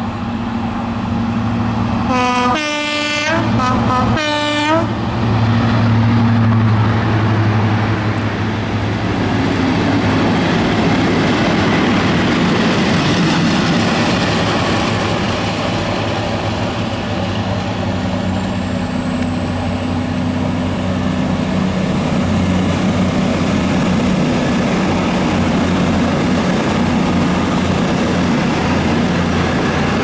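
Class 55 Deltic diesel locomotive sounding its horn in two blasts, then a convoy of diesel locomotives (the Deltic leading a Class 50, a Class 37 and a second Deltic) running past at speed, its engines loud and steady. From about two-thirds of the way in, a thin high-pitched whine rises slightly and then holds over the engine noise as the train goes away.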